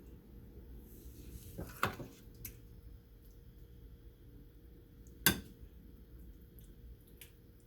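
Kitchen utensils and dishes knocking together: a short cluster of clacks about two seconds in and one sharp clack about five seconds in, over a faint steady hum.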